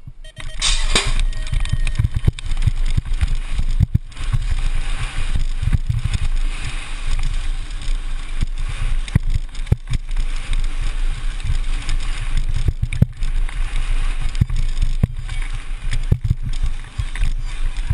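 A helmet-mounted GoPro on a racing BMX bike: a loud clatter about half a second in as the start gate drops, then wind rushing over the microphone as the rider sprints down the track. BMX tyres rumble on the surface, with scattered knocks from bumps.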